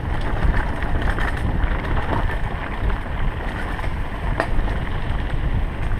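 Wind buffeting and rumble on a chest-mounted action camera as a mountain bike rolls along a dirt singletrack, with tyre noise and rattling from the bike. A sharp click about four and a half seconds in.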